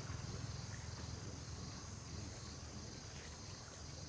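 Faint wetland ambience: a steady high insect buzz over a low rumble, with light water sloshing from water buffalo moving and feeding in shallow water.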